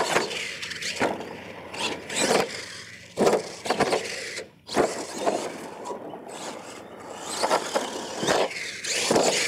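R/C monster truck driving hard on a dirt course: its motor revving in bursts and its tyres scrabbling on dirt, with several sudden loud bangs from jumps and landings off the ramps.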